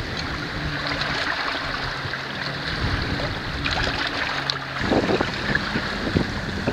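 Water rushing and splashing along the bow of a wooden three-masted sailing lugger under sail, with wind buffeting the microphone, heavier from about five seconds in.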